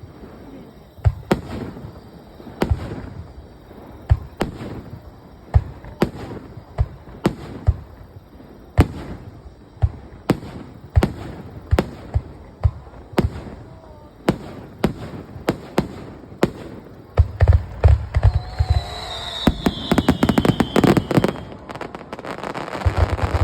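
Aerial fireworks bursting, one sharp bang about every second. In the last few seconds they become a dense, rapid barrage with a falling whistling tone.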